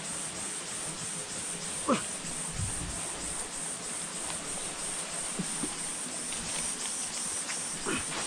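Steady chorus of forest insects, a high buzzing that pulses evenly, with a few scuffs and knocks over it, the sharpest about two seconds in and another near the end.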